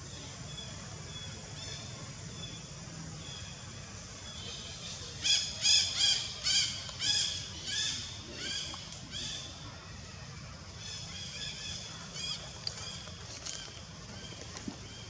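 A run of about eight loud, high-pitched animal calls, roughly two a second, starting about five seconds in and fading away, then a few fainter calls near the end.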